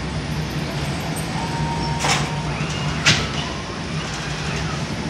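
Steady machine hum of a bakery's conveyor bread oven and extractor hood running, with two sharp knocks about a second apart near the middle, the second louder.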